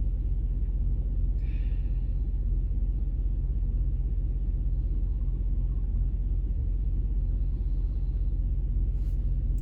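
The 2006 Pontiac GTO's LS2 V8 engine idling steadily, running on all eight cylinders after a fuel injector replacement.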